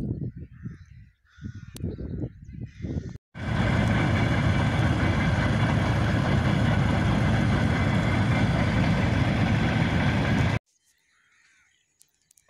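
A few crow caws over short uneven bursts of noise, then a freight train of hopper cars rolling along the line: a loud, steady rumble lasting about seven seconds that cuts off suddenly.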